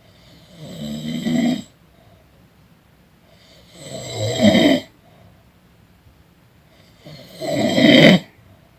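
A person snoring: three snores about three seconds apart, each swelling over about a second and then breaking off sharply.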